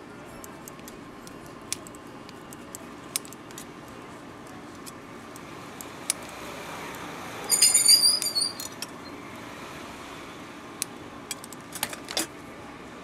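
Scissors snipping grilled dried squid into strips, with sharp clicks from the blades and steel tongs over a steady background hum. About eight seconds in comes a brief, loud metallic clatter with a ringing jingle.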